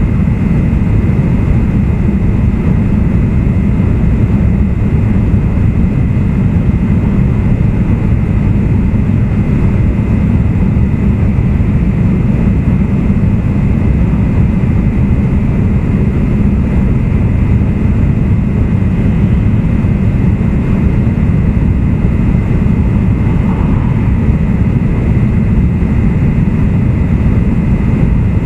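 Steady running noise inside an E2 series 1000 Shinkansen car (E226-1205) travelling at speed: a deep, unchanging rumble with a faint high steady hum.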